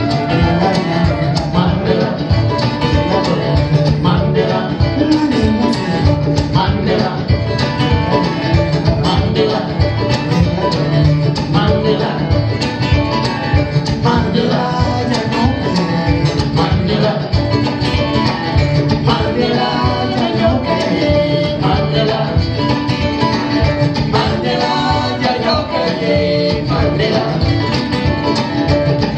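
Live acoustic bluegrass and West African fusion music: plucked strings, including guitar and kamale ngoni, playing over a steady beat.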